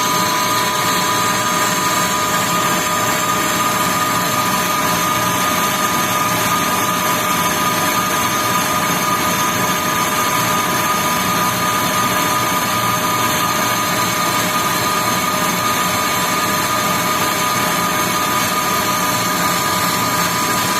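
Metal lathe running steadily through a trepanning cut: a constant mechanical whir with a steady whine, unchanging throughout.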